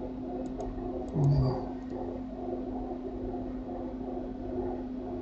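Steady low electrical hum and hiss of the recording's background, with a short low vocal sound from the narrator a little over a second in and a few faint clicks.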